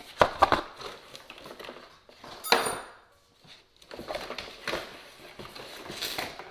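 Metal parts and tools clinking and knocking as they are handled, a few separate clatters with one sharp ringing clink about two and a half seconds in.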